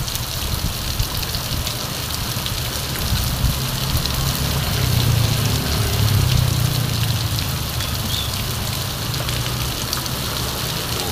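Heavy rain pouring down and splashing on a wet street, a steady hiss. A motor scooter's engine passes through the rain, loudest about five to seven seconds in.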